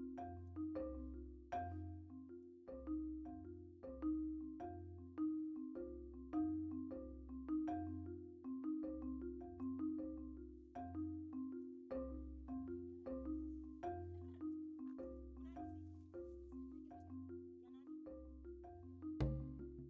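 Background music: a gentle tune of struck mallet-like notes over a repeating bass line, with a steady beat.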